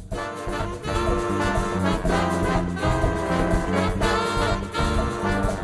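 Big band playing an instrumental passage: a brass section of trumpets and trombones over bass and drums, coming in after a brief lull.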